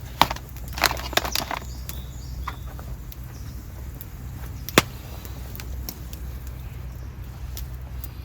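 Camp cookware being handled: a cluster of sharp clicks and knocks in the first two seconds and a single sharper click near the middle, over a steady low rumble.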